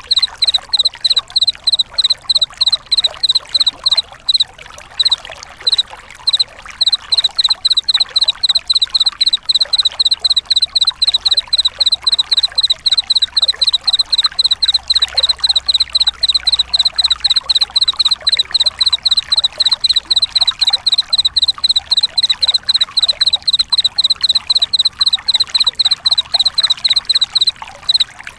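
Chirping of a singing insect: short high-pitched chirps, all at the same pitch, repeated steadily about three times a second and stuttering briefly around five seconds in, over a steady hiss.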